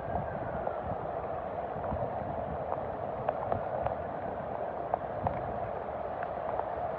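Heavy rain falling steadily onto a flooded street, a constant hiss of drops on standing water with scattered sharp ticks of drops landing close by.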